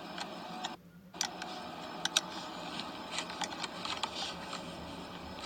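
Scattered light metallic clicks and taps of a wrench and hands working on a car starter motor's mounting nut, at an uneven pace. The sound cuts out briefly about a second in.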